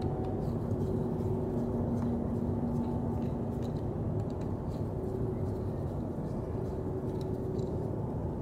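Steady low hum of running machinery with a few held tones, and faint small clicks of a screwdriver working screws out of a car starter motor's housing.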